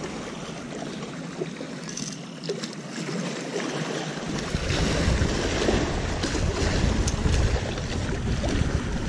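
Small waves lapping against a rocky shoreline, with wind buffeting the microphone from about four seconds in.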